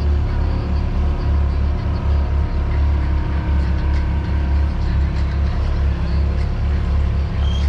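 Engine of a Diggerland ride machine running steadily close by, a heavy low rumble with a steady hum above it.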